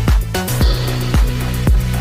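Background electronic dance music with a heavy kick drum about twice a second over a deep bass line.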